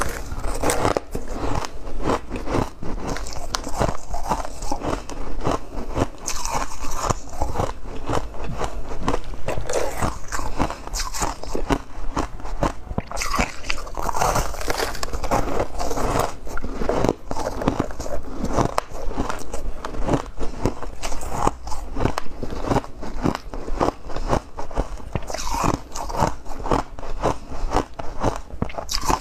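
Refrozen freezer frost ice being bitten and chewed close to the microphone: a dense run of crisp crunches and crackles.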